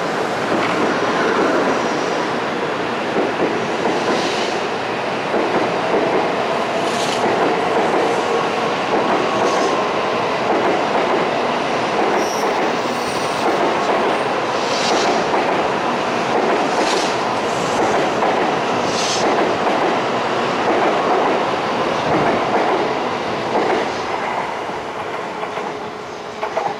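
N700A Shinkansen train accelerating out of the station past the platform: a steady rush of wheels on rail and running gear, with a few sharp clicks. It fades near the end as the last car clears.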